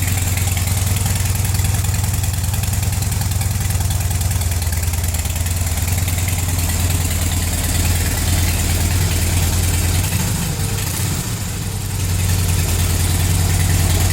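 Harley-Davidson V-twin motorcycle engine idling steadily through its stock mufflers.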